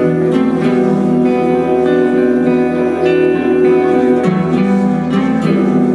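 Live black metal band music led by guitars playing ringing, held chords that change every second or so.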